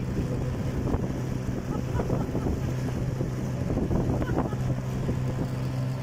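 Motor of a small wooden fishing boat running steadily under way, a constant low hum, with wind buffeting the microphone and water splashing along the hull.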